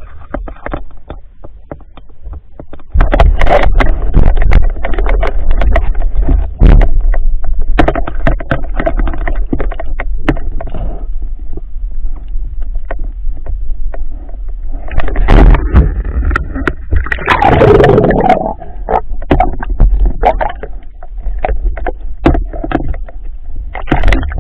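Rushing water and a low rumble from a camera moving through the sea, with many scattered knocks and scrapes. Loud surges of water noise run from about three seconds in, and again near two-thirds of the way through.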